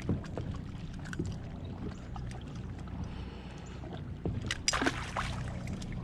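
Steady low mechanical hum on a fishing boat, with scattered light clicks and a short cluster of louder knocks and clatter about four and a half seconds in.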